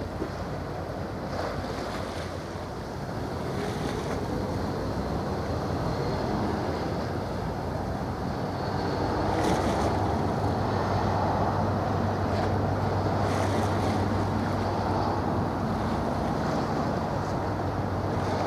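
Low steady drone of ship engines passing close by, swelling about halfway through, over the wash of water along the hulls and wind buffeting the microphone.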